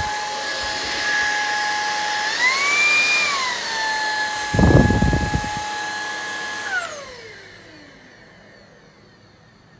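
Kogan C10 Pro cordless stick vacuum running on its replacement motor with a steady high whine. The whine briefly rises in pitch and falls back, a low bump sounds in the middle, then the motor is switched off and its whine falls away as it spins down.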